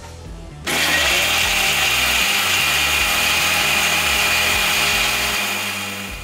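Electric mixer grinder blending tomatoes, coriander leaves and cashew nuts into a paste. The motor starts abruptly about a second in, runs steadily, and fades as it winds down near the end.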